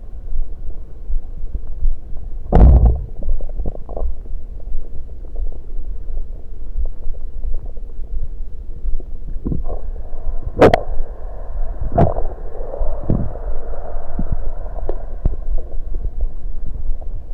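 Stomach gurgling and rumbling, close-miked on the belly, from fizzy soda and gas moving in the stomach. A low rumble runs throughout, broken by a few sharp, loud gurgles: the loudest is about two and a half seconds in, and a cluster comes around ten to thirteen seconds.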